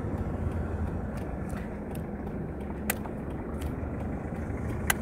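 Steady hum of a car driving, heard inside the cabin, with two sharp clicks, one about three seconds in and one near the end.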